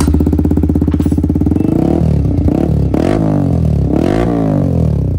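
Yamaha MT15's single-cylinder engine idling through an aftermarket carbon-look Akrapovič silencer held by hand on its full-system bend pipe. From about two seconds in it is revved in several quick throttle blips, the pitch rising and falling with each.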